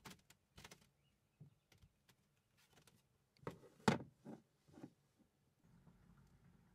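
Someone moving about a small room: scattered light knocks and clicks of handling things, with a cluster of louder knocks about four seconds in.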